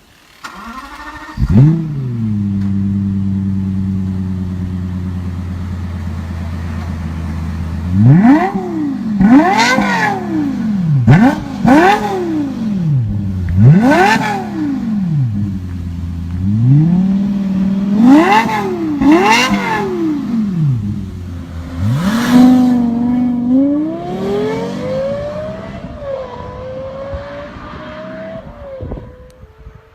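Lexus LFA's naturally aspirated 4.8-litre V10 firing up about a second and a half in with a quick rev flare, then settling to a steady idle. From about eight seconds in it is blipped hard about eight times in quick succession, each rev rising and falling sharply, followed near the end by a slower, longer climb in revs that fades away.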